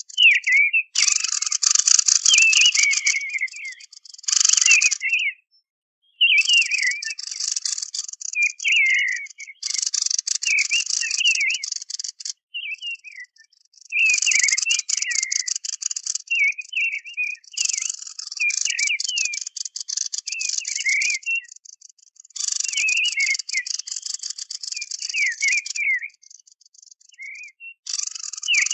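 Recorded song of the bird known in Arabic as kikhen al-lazzab, played as a hunting lure. Dry, high, buzzing rattles a few seconds long alternate with quick chirping notes, repeating over and over.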